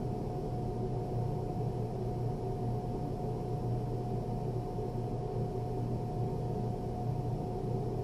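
A steady low hum with a faint constant higher tone over it, unchanging throughout; no separate crashes or impacts stand out.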